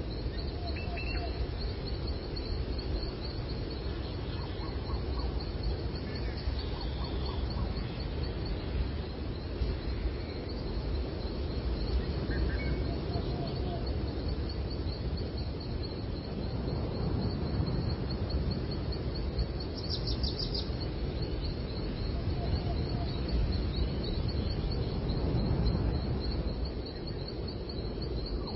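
Birds singing, with short scattered calls over a steady low background rumble and a fast, continuous high trill running through most of the stretch.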